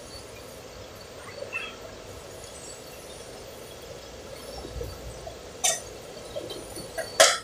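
Low background with two sharp clinks, one a little before six seconds in and a louder one near the end.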